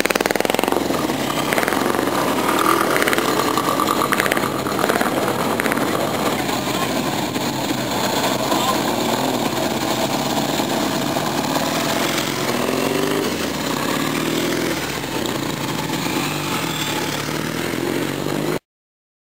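Several classic motorcycle engines running as riders pull away one after another, with people talking among them. The sound cuts off suddenly near the end.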